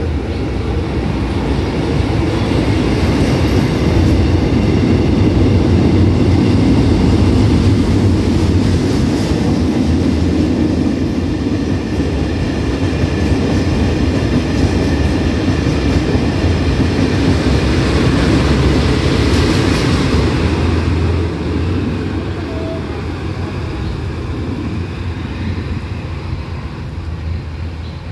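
Empty ballast train of steel hopper wagons rolling past close by, wheels clattering and rumbling on the rails, pushed from the rear by a DD51 diesel-hydraulic locomotive. The sound falls away over the last several seconds as the train draws off.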